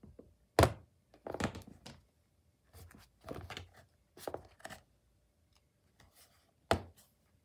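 Plastic wall panels of a clip-together toy kennel being unclipped and pulled off its base: a series of sharp plastic clicks and knocks, the loudest about half a second in and another near the end, with rougher rattling clusters between.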